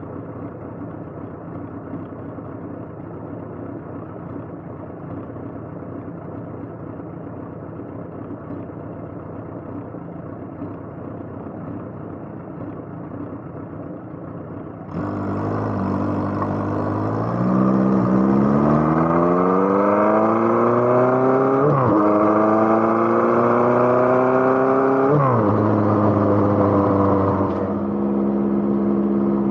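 A motorcycle engine, heard while riding. First comes a muffled steady drone. Then, about halfway through, the engine pulls clearly and rises in pitch, dropping twice in quick succession as it shifts up through the gears, before settling into steady cruising.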